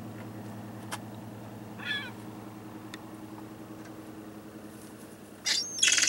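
Gulls calling: a short wavering call about two seconds in, then two loud harsh calls close by near the end, over a steady low hum.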